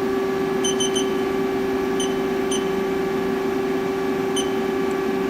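Short electronic key beeps from the Haas CNC lathe's control panel, three in quick succession and then three more spaced out, as the spindle speed is keyed in. Under them, the idle machine gives a steady hum with one constant tone, and the spindle is not yet turning.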